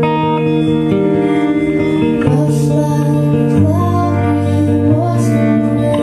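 Live folk song: acoustic guitar with held low notes that change every second or two, and singing over it.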